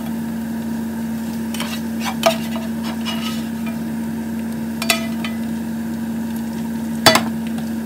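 A spatula scraping and knocking against a frying pan while fried potatoes are moved into a pan of mushrooms, with frying sizzle underneath. Three sharp knocks of the utensil on the pan stand out, the last near the end and the loudest.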